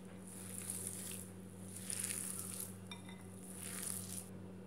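Hand squishing and kneading boiled noodles, peas and mashed potato in a glass bowl: soft, repeated rustling swishes about once a second, with a light click about three seconds in. A steady low hum runs underneath.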